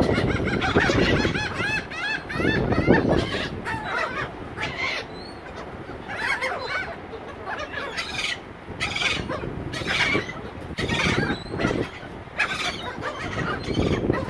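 A flock of laughing gulls calling over one another in a dense, continuous chorus of quick, repeated cries as they crowd and compete for scattered food.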